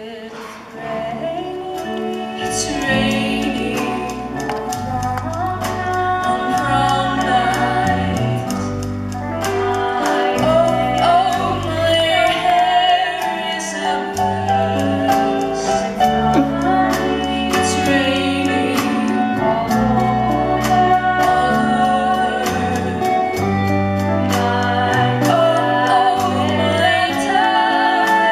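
A girl singing a solo song over musical accompaniment.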